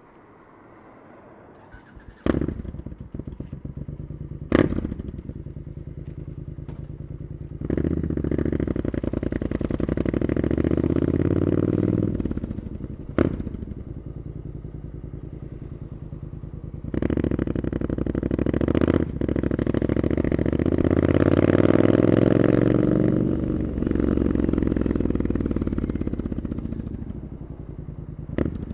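Triumph Scrambler 900's parallel-twin engine through an Arrow exhaust. It starts about two seconds in, then pulls away under throttle twice, its pitch rising through the revs, with a lower steady running sound between the two pulls. Several sharp cracks sound in between.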